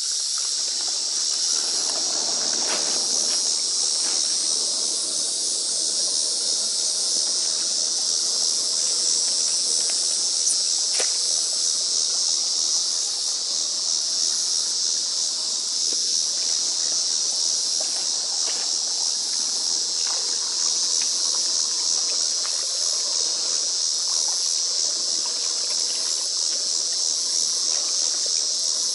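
Steady high-pitched insect chorus, with occasional faint splashes and scrapes as pond algae is raked and gathered by hand in shallow water.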